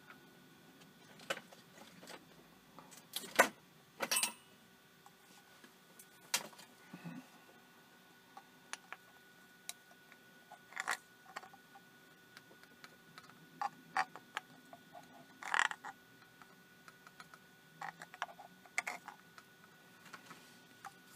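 Sporadic small clicks, taps and rustles of hands handling a plastic super glue bottle, wires and thin foil, with a faint steady hum underneath. The loudest clicks come about three and a half seconds in and again just past the middle.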